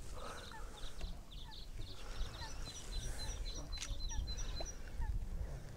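Wild birds calling by open water: a quick run of short high chirps, about four a second, in the middle, with short lower calls scattered throughout, over wind rumbling on the microphone.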